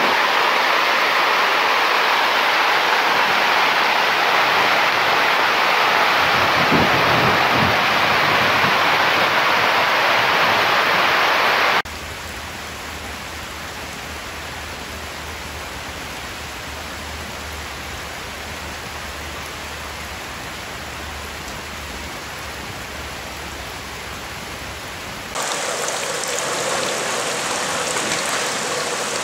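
Rain falling on the fabric of a Cravo retractable greenhouse roof, a steady hiss heard from underneath. It drops suddenly to a quieter level about twelve seconds in, where the roof drains water through its valley, and rises again near the end, where rain falls on a roof over a gutter.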